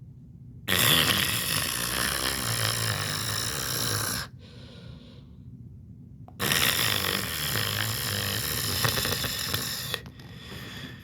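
A person snoring: two long snores, each lasting about three and a half seconds, separated by a quieter breath.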